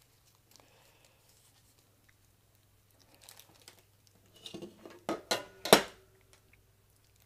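Small hardware being handled: a plastic parts bag crinkling and screws and spacers clicking and tapping, in a short cluster in the second half, the loudest a sharp click a little before six seconds in. A faint low steady hum runs underneath.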